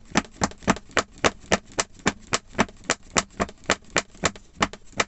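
Rapid, even knocking, about four knocks a second, from tapping a filled silicone mould on a wooden table. The tapping settles the wet aluminium casting compound and brings air bubbles to the surface.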